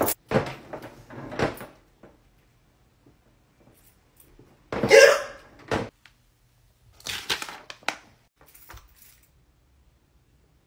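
A sharp knock on a door at the start, then a few short sounds of a door being opened, with one louder short sound about five seconds in.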